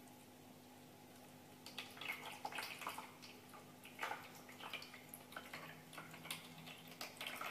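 A cat pawing at and lapping water in a pet drinking fountain: faint, irregular splashes and drips that start a couple of seconds in, over a steady low hum.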